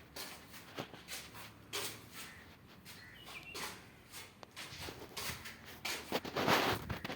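Irregular knocks, taps and scraping, with a longer, louder scrape or rustle about six seconds in.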